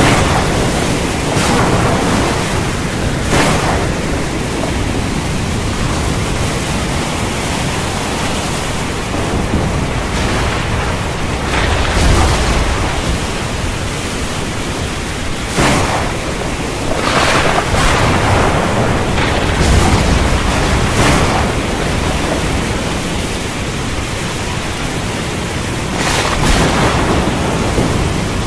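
Steady heavy rain hissing, with thunder rumbling and cracking several times, loudest about twelve and twenty seconds in.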